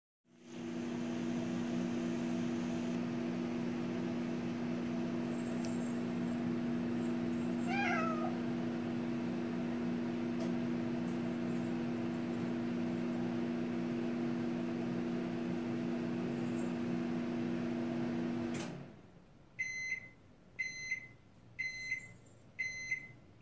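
Microwave oven running with a steady hum that cuts off suddenly, followed by four short beeps about a second apart. A cat meows once partway through the hum.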